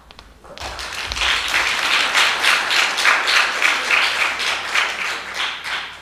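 Audience applauding, starting about half a second in and dying away just before the end.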